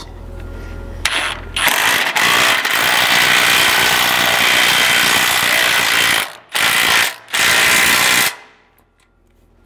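Ridgid cordless impact wrench hammering a half-inch thread-cutting bolt into its drilled pilot hole. It runs steadily for about five seconds, gives two shorter bursts, then stops.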